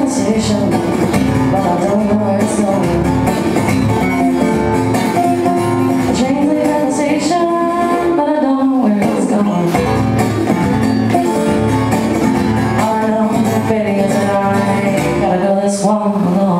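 A woman singing with her own acoustic guitar accompaniment, performed live.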